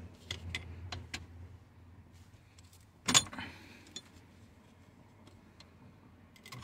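A few light metallic clicks and taps of a screwdriver and gloved hand working at the shift-cable linkage on a steering column, with one louder sharp click about three seconds in.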